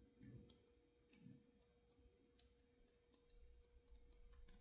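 Near silence with faint, scattered small clicks.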